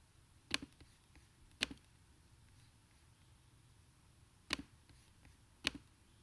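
Computer mouse clicks: four sharp clicks in two pairs, each pair about a second apart, each click followed by a softer tick as the button is released.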